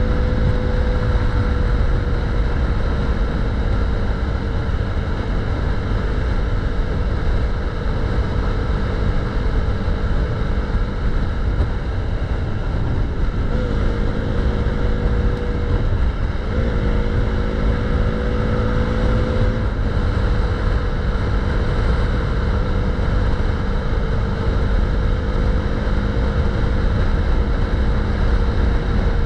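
KTM 390's single-cylinder engine running steadily at road speed under heavy wind rush on the microphone. The engine note shifts briefly about halfway through, with a short break and a dip in pitch before it settles again.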